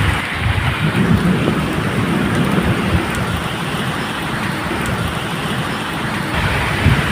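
Medium rain falling steadily, with a deep, uneven rumble of distant thunder underneath.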